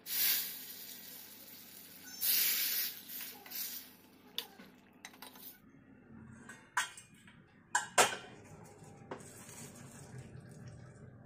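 A steel ladle scraping inside an aluminium cooking pot of potato curry, then sharp metal clinks of the ladle and a steel pot lid knocking against the pot rim, the loudest clink a little under 8 seconds in.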